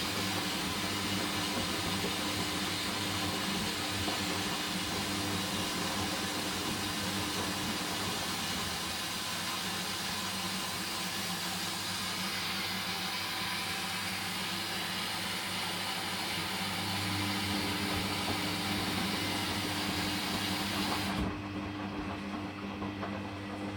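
Hoover Dynamic washing machine running during its rinse: a steady hum with a strong hiss over it. The hiss cuts off suddenly about 21 seconds in, leaving the hum.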